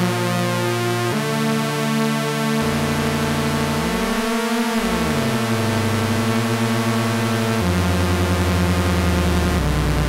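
GForce Oberheim SEM software synthesizer sounding sustained tones whose pitches jump abruptly a few times, with pitches sliding up and down across each other around the middle, as its oscillator frequencies are turned.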